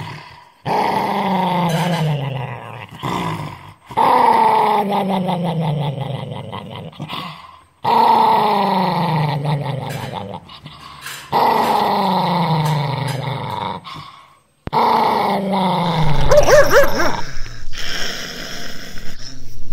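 Small long-haired dog growling in five long drawn-out growls, each sliding down in pitch, with short breaks between them. Near the end a higher, wavering sound takes over.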